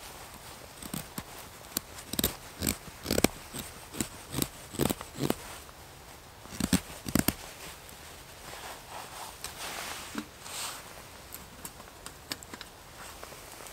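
Dry twigs snapping as they are broken by hand: a quick string of sharp cracks over the first several seconds, followed by a softer stretch of rustling with a few light clicks.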